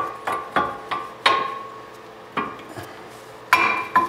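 Metal clinks and taps as a steel-backed brake pad is handled and fitted at the caliper and rotor: about eight sharp knocks, each ringing briefly, the loudest about a second in and near the end.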